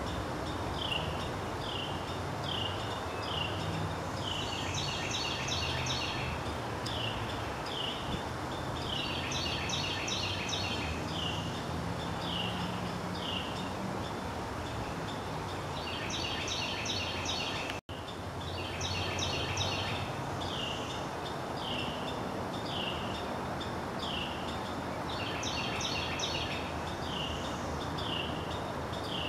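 A songbird singing the same phrase over and over, about every five seconds: a run of short falling whistles, then a quick rattle of notes, over a steady low background rumble. The sound drops out for an instant a little past halfway.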